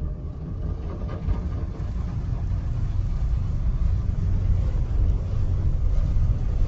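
Automatic tunnel car wash running, heard from inside the car's cabin: a steady low rumble of the wash machinery with water and foam on the car, slowly growing louder.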